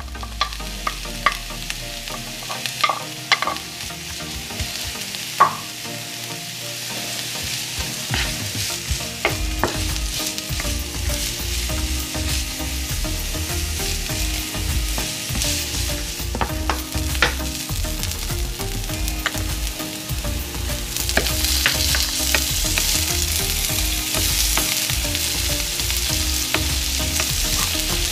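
Chopped onion sizzling in hot oil in a nonstick frying pan while a wooden spatula stirs it, with scattered taps and scrapes against the pan. The sizzle grows louder about three-quarters of the way through as the onion sautés toward browning.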